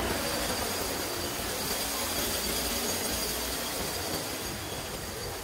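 Shatabdi Express passenger train running, heard from an open coach doorway: a steady rush and rumble of wheels on the rails, with a thin high wheel squeal through the middle.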